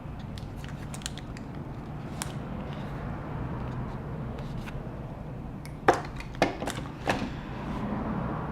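Small tools and metal parts handled on an opened MacBook Pro: faint light clicks and scrapes, then three sharper taps close together about six to seven seconds in.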